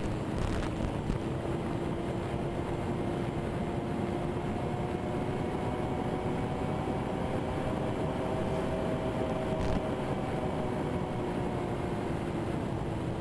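Twin electric motors and propellers of a Twinstar RC plane in flight, a steady hum that drifts slightly in pitch, over wind rushing across the onboard camera's microphone.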